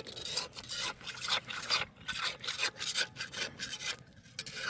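A utensil scraping and rubbing in repeated short, irregular strokes against the bottom of a cast-iron pot of lasagna, feeling for whether it has burnt onto the bottom.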